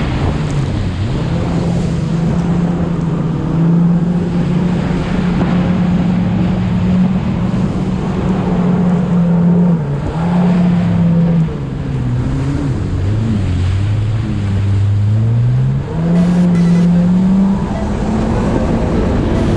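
Jet ski engine running under way, a steady drone whose note dips briefly about halfway through, then sinks lower and climbs back up about three-quarters of the way in as the revs fall and rise again.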